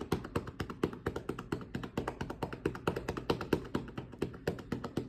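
Rapid, steady cupped-hand percussion on the chest wall over the right middle lobe of the lung: quick, even claps of the cupped palms on the patient's side to loosen mucus for clearance.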